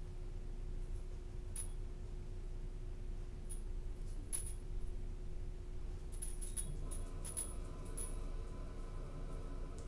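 Light metallic clinks and jingles, a few scattered in the first half and a quick cluster in the second half, over a steady electrical hum.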